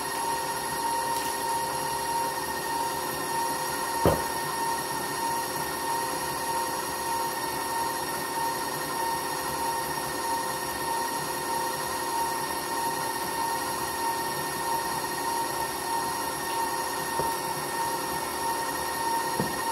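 Stand mixer running steadily with a constant motor whine. A single sharp clink comes about four seconds in.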